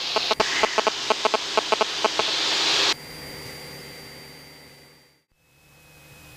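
Cessna 172 cabin noise: a steady engine-and-wind drone with a rapid, regular ticking, which cuts off abruptly about three seconds in. A much quieter drone follows, fading out to silence and back in.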